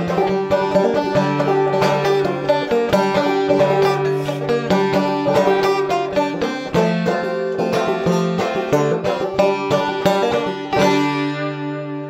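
Resonator banjo played solo: a fast stream of picked notes with open strings ringing underneath, ending on a last strike about eleven seconds in that rings out and fades.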